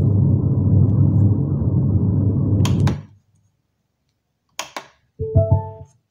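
Subwoofer of a Cydon C-300 3.1 active speaker system, its TDA7379 amplifier freshly repaired, putting out a loud, steady low rumble that cuts off suddenly about three seconds in. A few sharp clicks follow, then a short low thump with a brief rising beep near the end.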